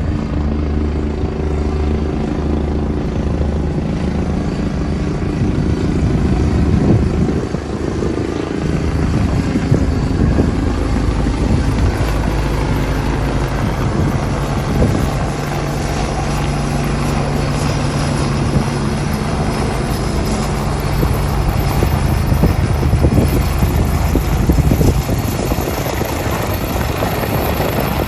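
Helicopter running close by: steady rotor beat over its engine noise, loud throughout.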